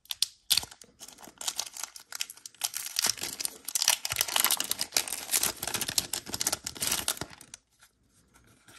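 Foil wrapper of a Pokémon booster pack being torn open and crinkled by hand: a dense run of sharp crackling and tearing that stops near the end.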